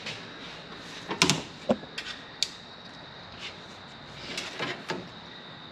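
Irregular metallic clicks and taps of small parts being handled at an MG Midget's steering rack, as the rack's spring and the ball-ended plunger that loads it are taken out. The sharpest clatter comes about a second in, with more clicks near the end.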